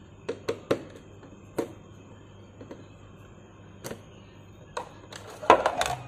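A few sharp clicks and taps of a screwdriver working the screws of a refrigerator's plastic drip tray, then a louder clatter of plastic near the end as the tray comes off.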